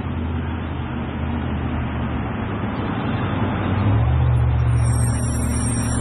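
Mack automated side-loader garbage truck's engine growing louder as the truck approaches and pulls up close. Near the end a thin high-pitched squeal, typical of brakes as the truck slows to a stop.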